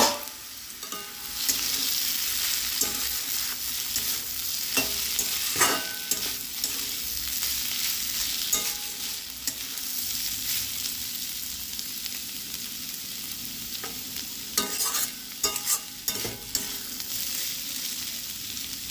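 Shredded potatoes (aloo bhaja) sizzling in oil in an aluminium kadai on a low flame while a metal spatula stirs them, scraping and clinking against the pan, with a run of scrapes about three-quarters of the way through. There is a loud metal clank right at the start.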